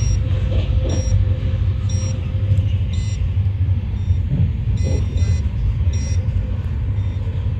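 Shatabdi Express passenger train running at about 129 km/h, heard inside the coach as a steady low rumble of wheels on rails.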